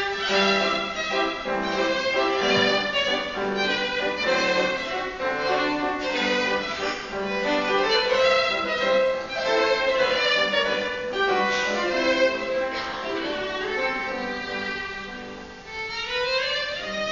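Violin playing a melody with piano accompaniment, with a rising slide near the end.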